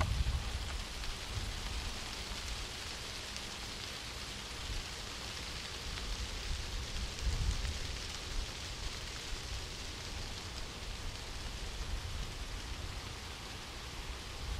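Steady breeze outdoors: an even hiss, with uneven low rumbles of wind buffeting the microphone.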